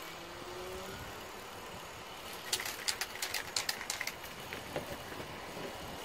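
Aerosol spray-paint can being shaken, its mixing ball rattling in a quick run of sharp clicks for about a second and a half midway, over a steady outdoor background hum.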